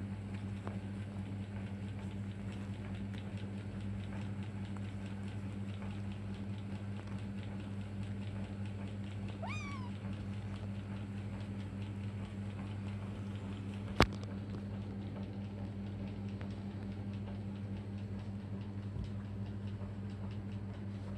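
Young kittens tussling on bedding, with faint scratchy rustling and one short, high kitten meow about halfway through. A steady low hum runs underneath, and a single sharp click a few seconds after the meow is the loudest sound.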